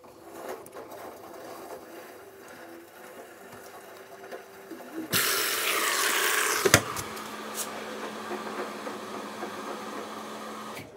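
Front-loading washing machine starting its fill: a steady mechanical whir, then about five seconds in water suddenly rushes into the detergent drawer, louder, with a sharp knock a moment later. After that the fill carries on more quietly, with a steady low hum under the rush of water.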